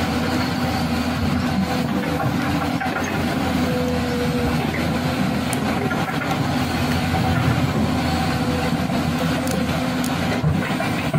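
An engine running steadily: an even drone with a constant pitched hum.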